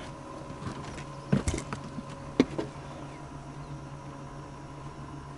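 An electric boat motor hums steadily. There is a short cluster of knocks about a second and a half in and a sharp single knock about two and a half seconds in.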